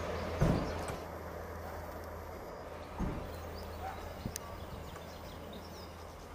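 Irish Rail 22000 Class diesel multiple unit running away into the distance, its steady low drone slowly fading. A few sharp knocks come through, one about half a second in and another at about three seconds.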